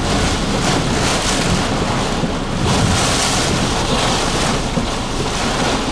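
Severe thunderstorm wind rushing and buffeting a car, heard from inside the car as a loud, steady rush that swells in gusts.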